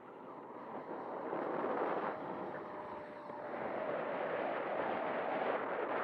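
Freewing 90mm F-22's electric ducted fan running at full throttle on takeoff: a loud rushing noise with a faint steady whine, swelling about 1.5 s in and again in the second half. Strong wind buffets the microphone.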